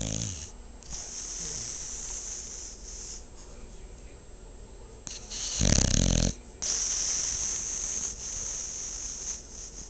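A sleeping dog snoring. One low snore tails off at the start, followed by a long hissing breath. A louder low snore comes about five and a half seconds in, followed by another long hissing breath.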